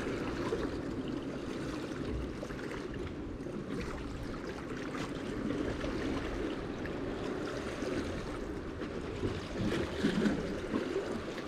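Seawater lapping and sloshing among concrete tetrapods, a steady wash that swells a little louder near the end.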